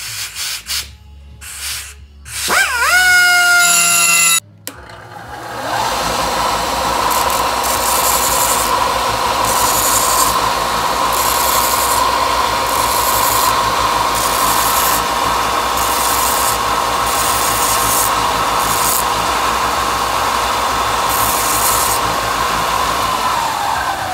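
A die grinder bevels the edge of a metal case stuffing plate clamped in a vise, its whine rising and dipping in short stop-start runs for the first four seconds or so. Then a bench belt-and-disc sander starts up and runs with a steady whine, while the plate's edges are pressed to the abrasive in repeated short passes, heard as bursts of hiss about once a second. Near the end the sander is switched off and its pitch falls as it spins down.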